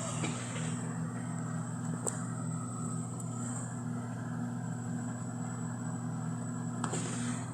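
Electrolux LES11 washing machine in its spin cycle, the motor running with a steady hum and a thin high whine, with a lot of motor noise. Two short sharp ticks, about two seconds in and near the end.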